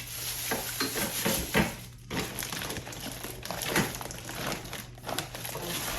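Crinkling and rustling of packaging as craft supplies are handled, in irregular bursts with a couple of sharper crackles.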